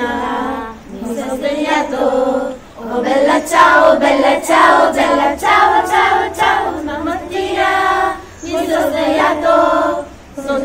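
A group of girls singing an Italian revolution song together, unaccompanied, in phrases of held notes with short breaks for breath.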